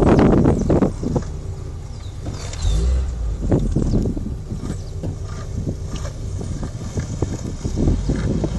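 Wheels rolling on asphalt make a steady low rumble, with wind buffeting the microphone hardest in the first second. A few faint high chirps come a couple of seconds in.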